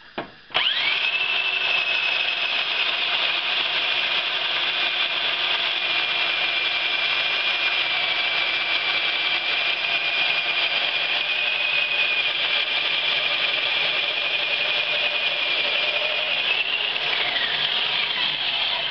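Handheld bandsaw mill ripping a 4x4 lengthwise, its motor giving a steady high whine after a short blip at the start. The pitch sags a little under the load of the cut and falls away as the motor shuts off near the end.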